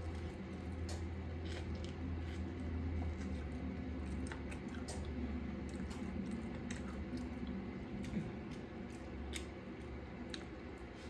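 Close-miked eating of a seafood boil: wet chewing and squishing with scattered small clicks and crackles, over a steady low hum that fades near the end.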